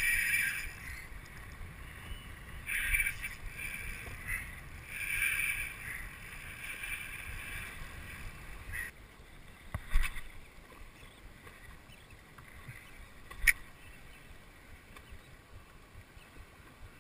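Sea water sloshing against a small boat's hull while a spinning reel is cranked in short bursts to retrieve a lure, with two sharp knocks about ten and thirteen seconds in.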